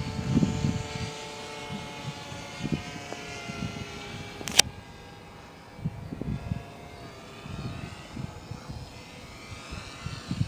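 Brushless electric motor and propeller of a Hobby King Cessna 182 foam RC plane whining in flight, its pitch drifting and shifting as the plane passes. Gusts of wind on the microphone, and one sharp click about four and a half seconds in.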